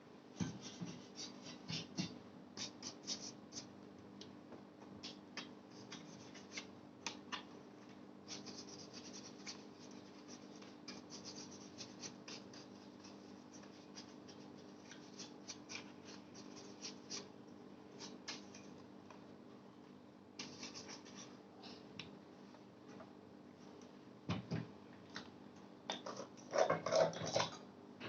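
Small clicks, taps and scrapes of hands handling a Lenovo ThinkCentre M720q Tiny PC's casing and parts during a memory upgrade, with a louder run of scraping and knocking near the end.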